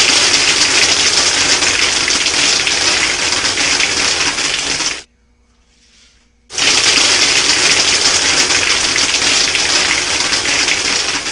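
Homemade soda-bottle airsoft machine gun firing: compressed air rushes from the air-compressor blowgun through the bottle, and airsoft pellets rattle out through the brake-line barrel. It fires two long bursts, about five seconds each, with a short pause between.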